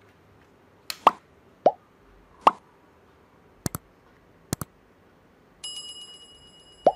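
Animation sound effects for a subscribe button: three short pops that drop in pitch, two quick double clicks, then a bell-like electronic chime rings on from a little past the middle.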